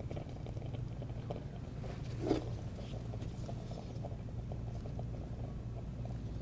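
Quiet kitchen work sounds: soft, scattered small clicks and ticks over a steady low hum, with one brief louder sound a little over two seconds in.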